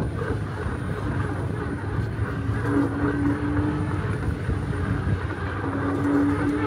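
Steady low rumble of wind and road noise, with a faint steady hum that comes in twice, briefly each time.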